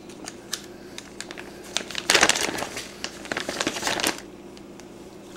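Clear zip-top plastic bag being pulled open and handled, crinkling, with scattered light clicks at first. The crinkling is densest and loudest for about two seconds, starting about two seconds in.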